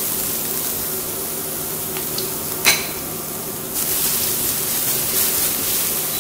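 Finely chopped garlic sizzling in hot oil in a nonstick frying pan as it is stirred with a silicone spatula. The sizzle grows louder about four seconds in, and there is one sharp click about two and a half seconds in.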